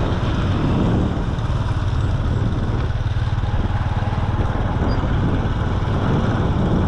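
A small engine running steadily, with a fast, even firing pulse.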